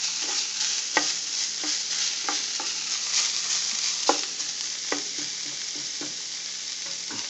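Ground beef and chopped onions sizzling steadily in a frying pan, a constant frying hiss with scattered sharp clicks every second or so.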